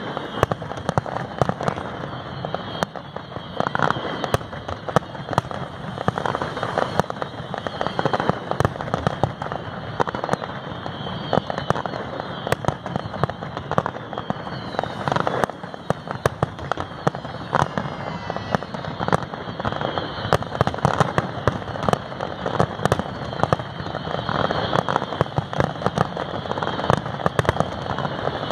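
Aerial fireworks display: shells bursting in quick, continuous succession, many sharp bangs over a steady rumble.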